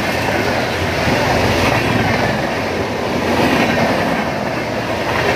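Indian Railways express train's passenger coaches passing close by at speed: a loud, steady running noise of wheels on the rails.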